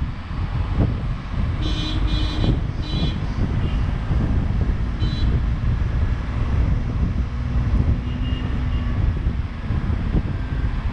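Vehicle driving with steady road and wind noise. A horn honks three times in quick succession about two to three seconds in, then once more briefly about five seconds in.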